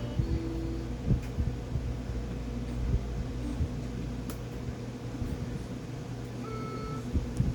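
A steady low hum runs throughout, with soft, irregular low thumps. A few brief electronic toy-piano notes sound, one near the start and two or three higher ones near the end.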